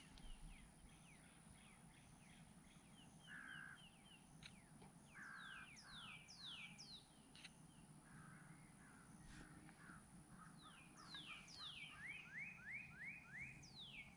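Faint wild birds calling outdoors: quick falling chirps and a few short, harsher notes, with a quick run of about five falling chirps near the end.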